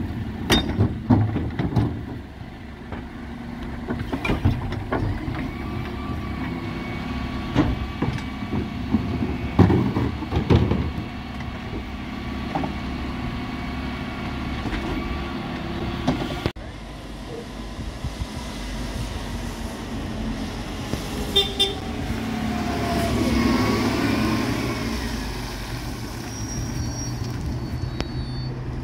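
Dennis Elite 6 refuse trucks working wheelie bins: the engine running with a steady hum while the rear bin lift raises and tips the bins, the plastic bins knocking and clattering against the lift and hopper. A whining motor sound rises and falls in the second half.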